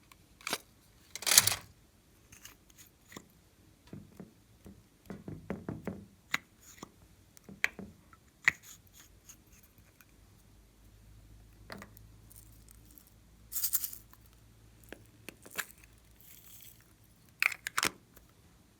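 Hands working clear slime with mixed-in bits: scattered sticky clicks, pops and crackles, with a few louder crackling bursts about a second in, around two-thirds of the way through and near the end.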